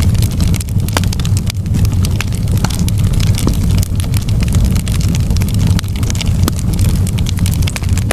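Wood fire in a fireplace crackling: many irregular sharp pops and snaps over a steady low rumble of the flames.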